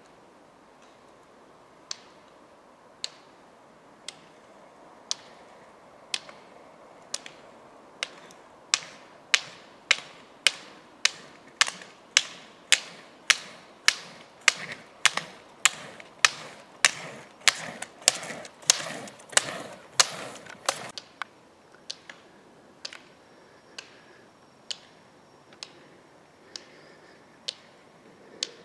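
Roller ski poles double-poling on asphalt: the carbide pole tips strike the road in sharp, regular clicks, louder and quickening to about two a second as the skier approaches, with the rolling hum of the ski wheels at the closest point, then fading again as they go by.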